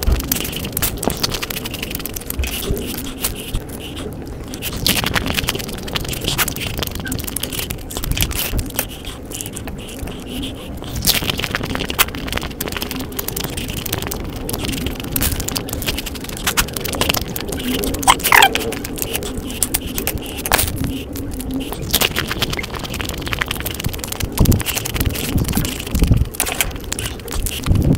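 Close-up chewing and crunching of Indian chaat: crisp sev and puri shells eaten with saucy chickpea curry, a dense, irregular run of crackly crunches.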